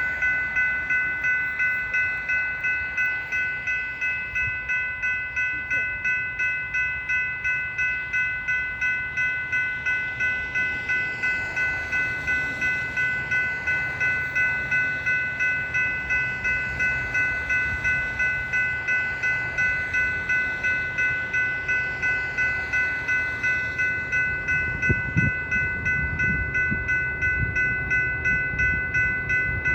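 Railroad grade-crossing bell ringing steadily at about two strikes a second. In the last few seconds the low rumble of an approaching train builds under it, with one brief knock.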